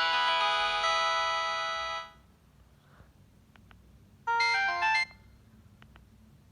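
Samsung SM-B310E phone playing a ringtone melody that stops about two seconds in. A few faint clicks follow, and another ringtone plays briefly near the middle before cutting off after under a second.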